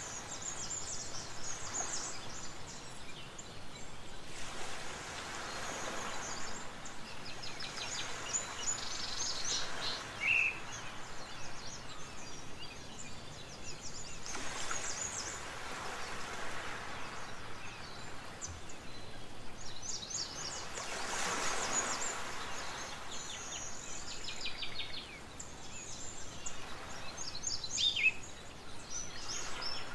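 Outdoor ambience: birds chirping, many short high calls scattered through, over a background hiss that swells and fades every few seconds.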